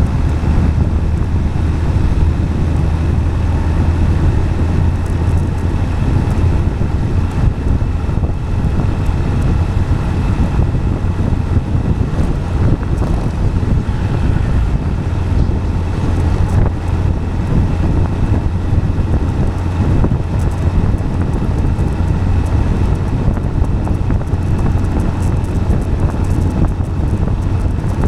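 Steady low rumble of tyres rolling on asphalt, with wind buffeting the microphone.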